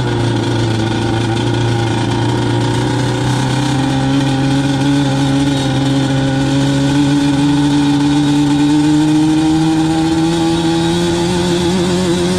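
Yamaha ATV engine running under throttle while riding on sand. It holds a steady pitch at first, then climbs slowly in pitch from about a third of the way in as the quad gathers speed.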